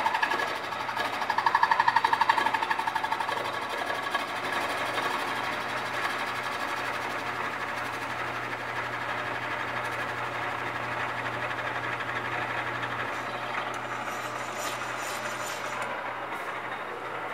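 Milling machine running a fly cutter through the gearbox casing, a fast, even chatter of the single cutting tooth biting the metal. Loudest in the first few seconds, then steady.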